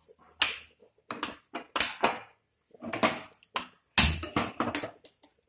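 Hand-held spark gas lighter clicking repeatedly to light a gas stove burner, with a louder pop about four seconds in as the burner catches.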